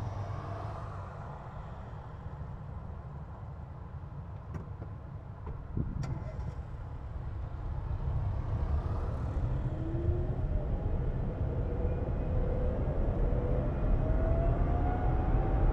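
Renault Twizy's electric drive motor whining, rising steadily in pitch as the car accelerates away from a standstill. Road rumble builds beneath it. Two short clicks come in the quiet stretch before it pulls away.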